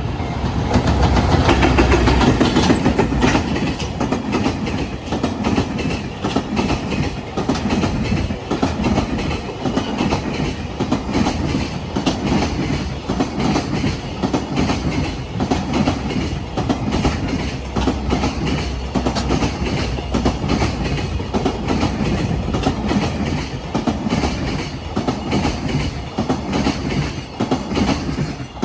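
Freight train passing close by, its wagon wheels clattering rhythmically over the rail joints. It is loudest in the first few seconds and cuts off suddenly at the end as the last wagon clears.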